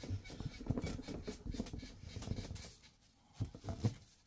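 A paper towel scrubbed quickly back and forth over the hard painted surface of a prize wheel, rubbing off permanent marker: a fast, irregular scratchy rustle that pauses briefly after about two and a half seconds, then a few more strokes near the end.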